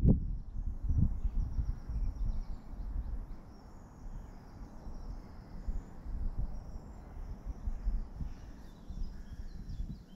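Outdoor ambience: an unsteady low rumble that rises and falls, with faint bird chirps high above it.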